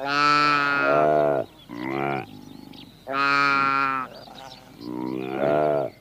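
Saiga antelope calling: a series of about four loud, drawn-out calls, each up to a second long, repeated every second or two.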